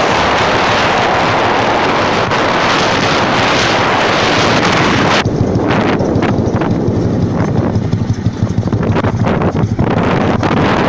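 Wind noise on the microphone of a camera carried in a moving vehicle, over the rumble of the ride. About five seconds in, the hiss drops away, leaving a lower, fluttering buffeting.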